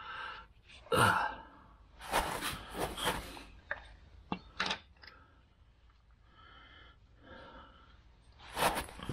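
A man's sighs and breathing, with handling noises and a few light clicks of tools being handled.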